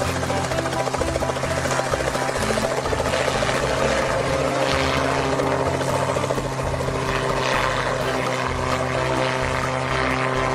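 Single-seat open-frame ultralight helicopter running at flying power, its engine and rotor making a steady, unbroken drone with a rapid flutter as it hovers low and then climbs away.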